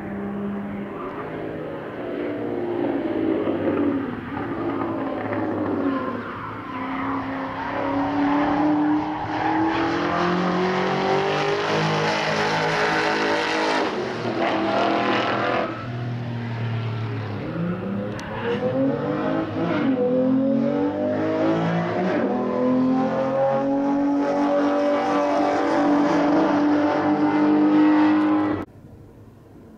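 Classic muscle car engine accelerating hard at full throttle, its note climbing and dropping back through several gear changes. It then holds a steady high note before cutting off abruptly near the end.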